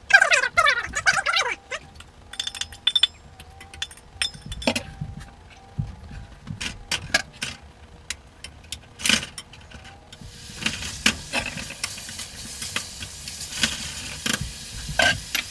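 Kitchen utensils clinking and knocking against cookware. About ten seconds in, a steady sizzle starts as food goes into a hot pan, with more clinks over it.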